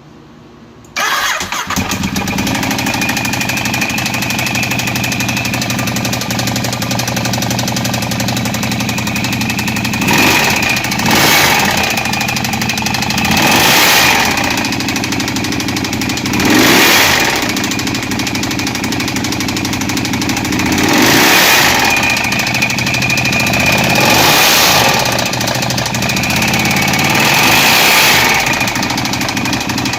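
2012 Ducati 848's V-twin engine starting about a second in, then idling steadily and revved in short throttle blips about seven times. It carries a knocking that the owner cannot identify.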